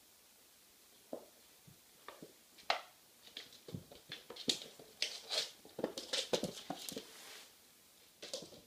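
A kitten's paws and claws scrabbling and tapping on a laminate floor as it bats a small ball around: quick irregular taps and scuffs starting about a second in, busiest in the middle and easing off near the end.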